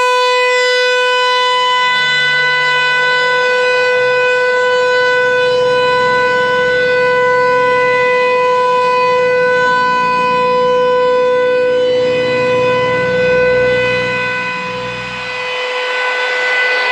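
American Signal T-135 outdoor warning siren sounding a steady tone during a test, its pitch holding level throughout. The loudness dips briefly near the end.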